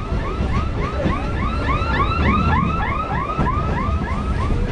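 EMU electric train running, its low rumble under a rapid electronic chirping alarm of about four rising-and-falling chirps a second. The chirps are loudest mid-way and fade as the train moves on past them.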